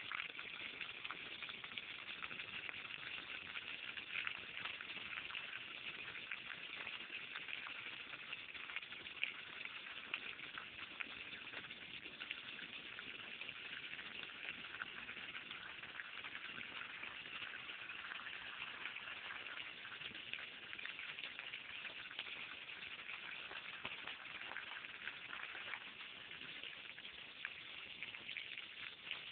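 A jet of water spraying up from the lawn and pattering down onto wet grass and puddles, a steady hiss with a few brief louder splashes.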